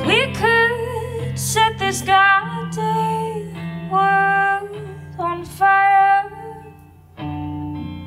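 A woman singing held notes over a Telecaster-style electric guitar playing sustained chords; near the end the singing pauses and a new guitar chord comes in.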